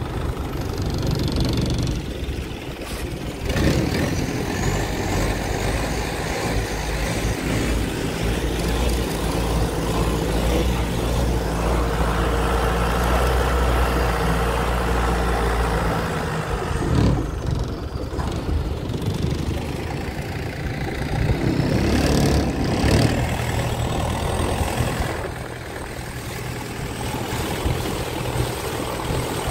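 An engine running steadily, its low hum strongest in the middle and dipping briefly a little past halfway, with a few short knocks.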